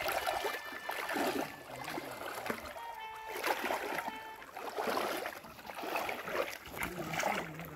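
Shallow river water splashing and sloshing as a person wades through it step by step, pushing a plastic basin along the surface, with a splash roughly every second.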